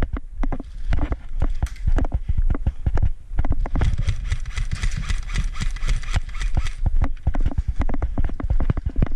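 Footsteps on dirt and gravel, a quick uneven run of thumps carried through a body-worn action camera. For about three seconds in the middle a hissy scraping, like gear or clothing brushing, lies over them.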